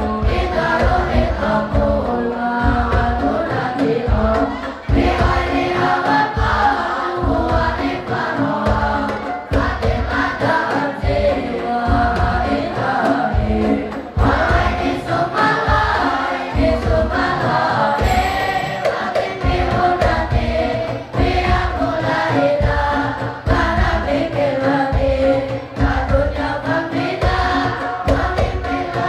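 A large group of boys singing Arabic verse in unison, set to a steady low beat of about two strokes a second.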